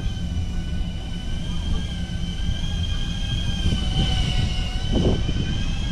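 FPV drone's propellers whining steadily at a high pitch, the pitch drifting slightly up and down as it flies, over a low rumble.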